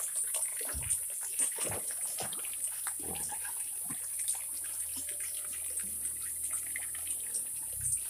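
Water running from a pipe into a pond, splashing steadily, with scattered short calls and splashes from a flock of whistling ducks.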